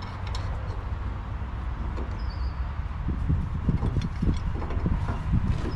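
Engine of a 1960s Case Construction King 530 forklift running steadily with a low hum, with scattered clunks and rattles from about halfway through.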